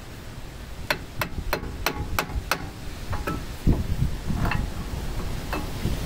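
Six sharp metallic clicks, evenly spaced about three a second, followed by a few softer clinks: metal tools and parts knocking on a truck's front disc brake assembly during a brake pad change.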